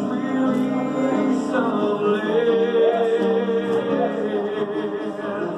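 Church worship music with sustained chords and a voice singing over them.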